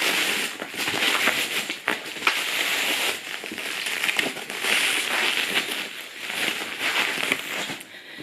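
Bubble wrap and packing paper being handled and pulled off a parcel, crinkling and crackling in a dense run of small clicks that swells and eases in waves.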